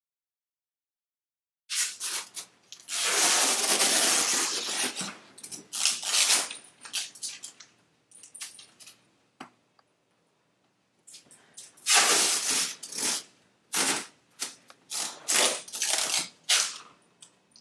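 Masking tape being pulled off the roll in repeated ripping strips, one long pull a few seconds in, then a run of shorter, quicker tears in the second half.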